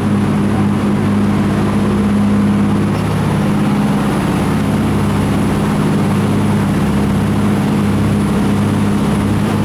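Jet boat's engine running steadily under a constant rushing noise, a low, even drone that holds without change.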